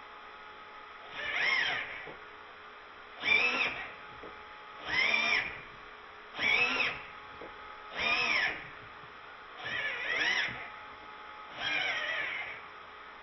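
Steering servo of a Losi 8IGHT-XTE truggy whining as it swings the front wheels from side to side. There are seven short sweeps, one about every 1.7 s, each rising then falling in pitch.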